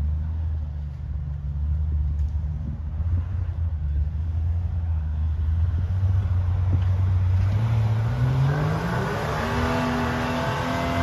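Jeep Wrangler's engine running low and steady, then revving up over a second or two near the end and holding at high revs as the Jeep works its way along the trail.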